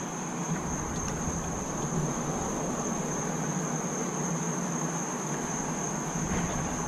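Steady high-pitched chorus of crickets over a low, steady hum, with a couple of faint clicks about a second in and near the end.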